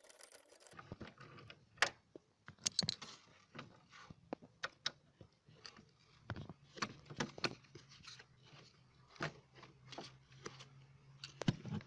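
Irregular metallic clicks and knocks of a hand tool working the bolt that holds a car's seat belt retractor, over a low steady hum.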